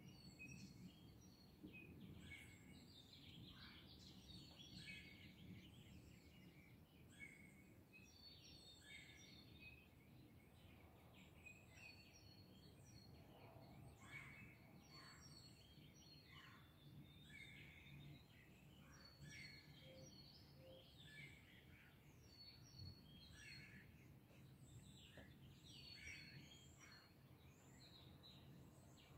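Faint birdsong: short chirping calls repeating every second or so, over a steady low background hum.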